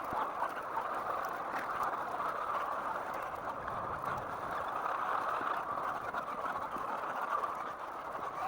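A house full of laying hens, their massed clucking and chatter making a steady din.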